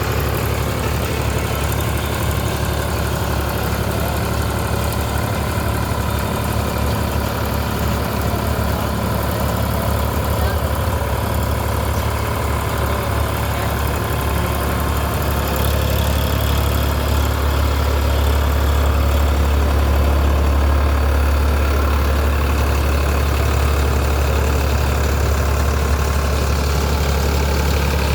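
Solis 5515 tractor's diesel engine running steadily while driving a baler, a constant low hum that grows a little louder about halfway through.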